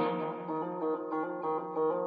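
Guitar being played: a strum rings out, then a run of single picked notes follows.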